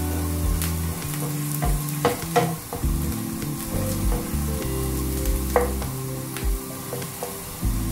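Diced onion and green chillies sizzling in hot oil in a white-coated wok while a wooden spoon stirs and scrapes through them, with a few sharp knocks of the spoon on the pan; this is the tempering stage, the onions frying until they colour. Soft background music with low held notes runs underneath.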